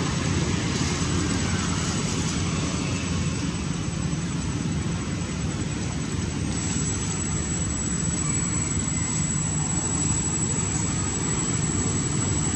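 Steady low rumbling background noise with hiss, and a thin, high, steady tone that grows louder about halfway through.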